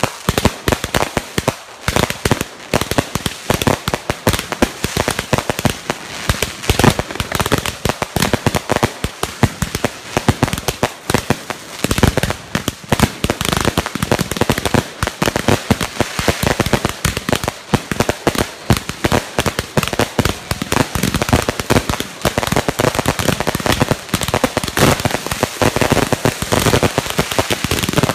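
Ground-level fireworks going off: a dense, continuous run of sharp pops and crackles, many a second.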